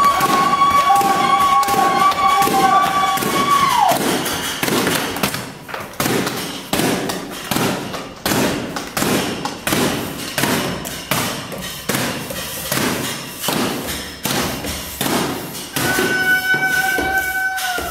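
Improvised percussion: a steady run of knocks, about two a second, echoing in a concrete space. Two held high tones sound together at the start, slide down in pitch and stop about four seconds in, then return near the end.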